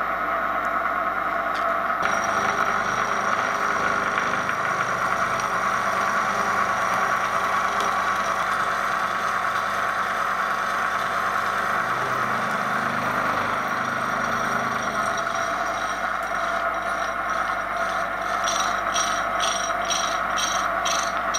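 Elliott Victoria horizontal milling machine running, its arbor-mounted disc cutter taking a roughing cut through an aluminium block over a steady machine whine. The cut comes in about two seconds in. Near the end, a quick, regular ticking of about three a second joins it.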